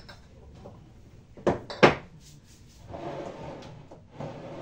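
Rummaging through a kitchen cupboard: two sharp knocks of things being moved about a second and a half in, then rustling and shuffling of items on the shelf.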